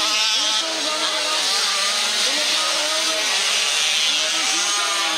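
Several motocross bike engines running at once, their pitches rising and falling together as the riders rev through the course.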